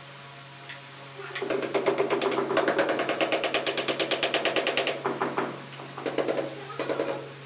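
Mallet rapidly tapping a large ceramic wall tile to bed it into the tile adhesive, about eight quick taps a second for three or four seconds, then a few scattered taps.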